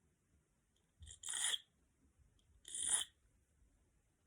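Swiss file drawn across the point of a steel fishing hook clamped in a hook holder, sharpening it: two short rasping strokes about a second and a half apart, each lasting about half a second.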